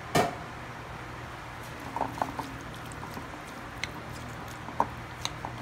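A spoon knocks once sharply against a bowl, then gives soft scrapes and a few light taps as chunks of canned albacore tuna are stirred and broken up with seasoning and lime juice, over a low steady hum.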